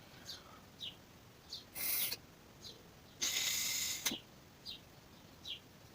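Compressed air blown through the carburetor's jet and fuel channels to clear them: a short hiss about two seconds in, then a longer hiss of nearly a second that cuts off with a click.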